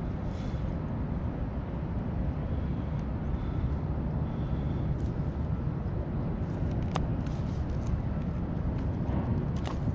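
Steady low wind rumble on the microphone, with faint clicks and taps as a striped bass is handled on a measuring board; one sharper click about seven seconds in.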